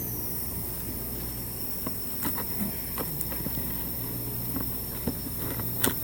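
A few scattered light clicks and knocks, the loudest near the end, over a steady low hum and a faint high whine, as parts are handled during a wheel hub removal.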